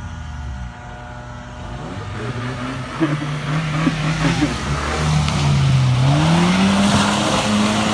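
Suzuki Vitara's engine revving hard under load off-road. Its pitch climbs about three seconds in, dips briefly near six seconds, then rises again and holds, getting steadily louder.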